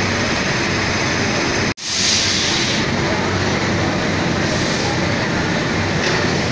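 Steady running noise of an Indian Railways WAP-5 electric locomotive standing at the station, a continuous whir and rumble. The sound cuts out for an instant about two seconds in, followed by a brief hiss lasting about a second.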